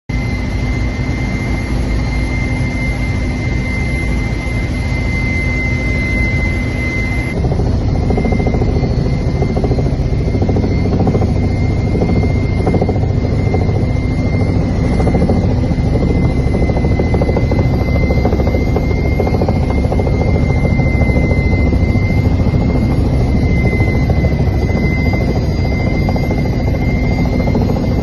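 Steady drone of the aircraft's engine, heard from inside the cabin, with a constant high whine over it. The sound shifts slightly about seven seconds in.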